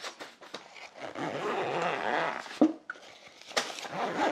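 Zipper on a cookware carrying bag being pulled closed: a steady rasp lasting about a second and a half, followed by a couple of sharp knocks.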